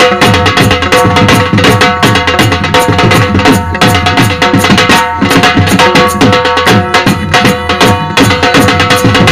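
Dhol drumming in a fast, dense rhythm, with a held melodic tone sounding beneath the strokes.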